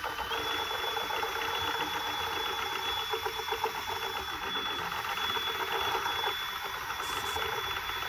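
Cordless drill driving a paddle mixer bit, stirring two-part paver sealer in a plastic 5-gallon bucket. Steady motor whine over a continuous rattling churn, the pitch stepping up slightly just after the start.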